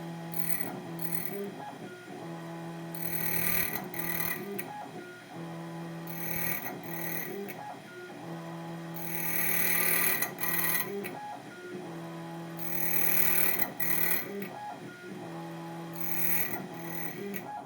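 ITL 9700A electronic key-cutting machine cutting Yale keys. A motor hum stops and restarts every couple of seconds, and bursts of high-pitched cutting noise come as the cutter works along the key.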